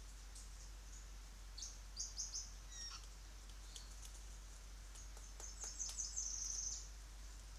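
High-pitched bird chirps in quick short series, a cluster about two seconds in ending in a quick falling note, and a longer rapid run near the end, over faint scattered clicks.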